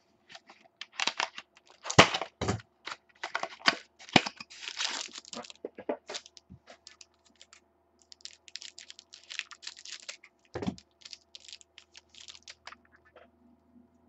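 Foil trading-card pack being torn open and cards handled: irregular crinkling, tearing and sharp clicks, with a soft thump about two seconds in and another near the end.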